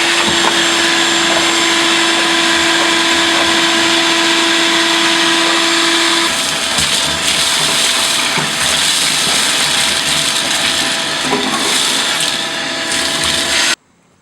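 Vacuum cleaner running loudly and steadily, sucking up mouse debris. Its tone changes about six seconds in, and it cuts off abruptly near the end.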